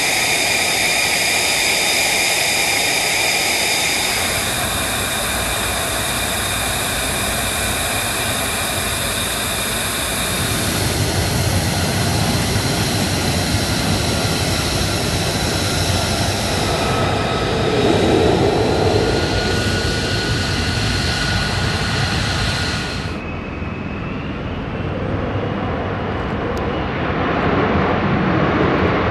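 F-35B's F135 jet engine running, a steady high turbine whine over a broad rush of jet noise. The sound changes abruptly several times where shots are spliced, and it grows louder near the end as the jet lifts off.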